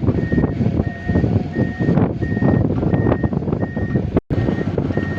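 Heavy machinery's back-up alarm beeping steadily, about three beeps every two seconds, over loud engine and machine noise. The sound cuts out briefly about four seconds in.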